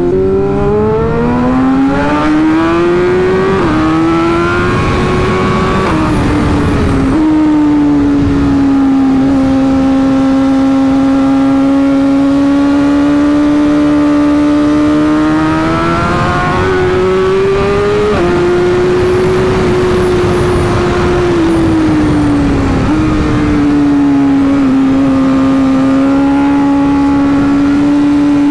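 Sportbike engine pulling hard through the gears, its pitch climbing and dropping twice at upshifts in the first several seconds. It then holds a steady cruise, with slow rises and easings of throttle, under wind rush on the bike-mounted camera.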